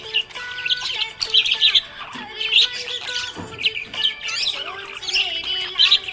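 Budgerigar chirping and squawking in quick bursts of short calls, several times a second.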